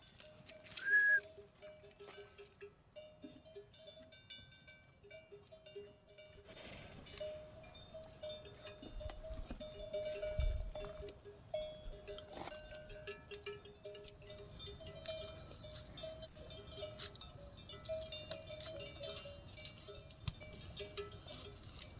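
Bells on grazing livestock clinking and ringing unevenly as the animals move, with a short high whistle about a second in.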